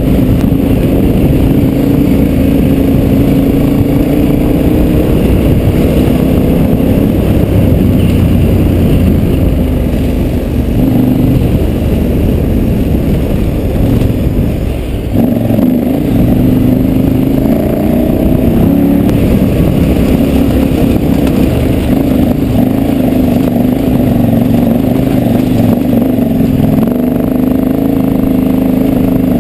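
KTM 1190 Adventure R's V-twin engine pulling the bike up a loose gravel climb, its note rising and falling with the throttle. About halfway through the engine eases off briefly, then picks up again as the throttle is rolled back on.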